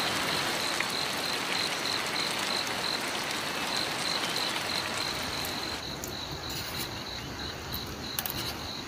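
Crickets chirping in a steady pulsing trill, about three or four pulses a second, over a constant hiss, with a few light clicks near the end.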